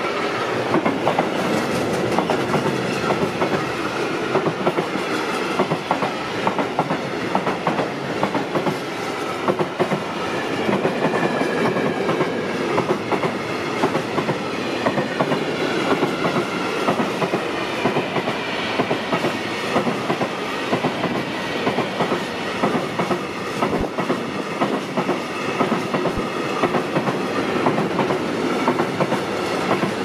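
Freight train of flat wagons and tank wagons rolling past, its wheels clattering steadily over the rail joints.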